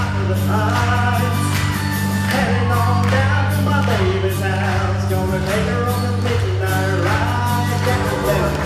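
Music: a song with singing over a steady, held bass line, playing loudly and without a break.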